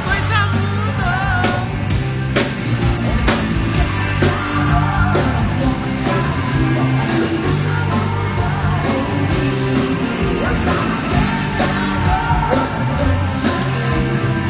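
Pop music played loud over a concert sound system during a soundcheck: a steady drum beat over bass, with singing.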